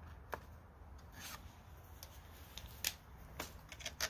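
Faint, scattered clicks and a brief rustle of hands handling a small engine ignition coil, its mounting screws and a paper spacer, over a low steady hum.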